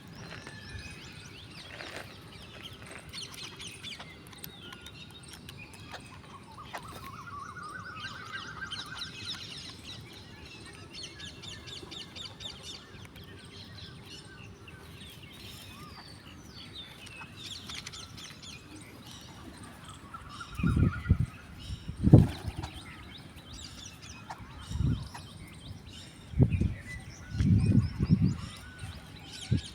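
Birds chirping and twittering throughout, with one rising call about seven seconds in. In the second half come several loud low thumps, the loudest about 22 seconds in.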